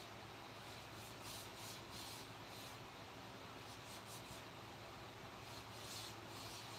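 Faint scraping strokes on wood, irregular and in short runs, from hand work on a wooden carving.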